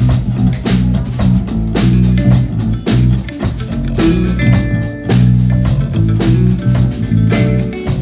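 Live band playing an instrumental passage: electric guitar and bass guitar over a drum kit keeping a steady beat.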